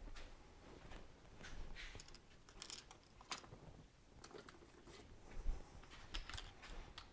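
Hand tools and small metal parts clicking and clinking now and then, with a few light knocks.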